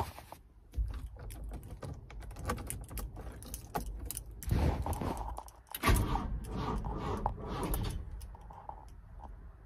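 Mk3 Ford Transit failing to start on a flat battery: a run of clicks, then two short, weak attempts about four and a half and six seconds in, and the engine does not catch.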